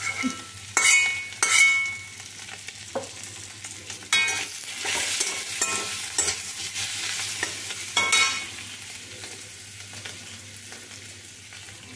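Small boiled potatoes frying and sizzling in oil in a metal kadai while a metal spatula stirs and scrapes them. The pan rings on the hardest strokes: twice about a second in, again near four seconds and at eight seconds.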